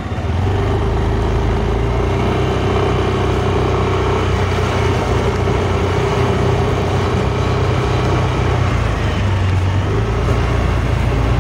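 Yamaha Mio Aerox S 155 scooter's single-cylinder engine running steadily while the scooter is ridden. It gets louder about a third of a second in, then holds an even note.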